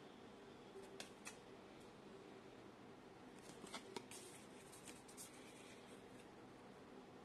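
Near silence with the faint sounds of collectible cards being handled: two light clicks about a second in, then a cluster of clicks and soft brushing as cards are swapped in the fingers.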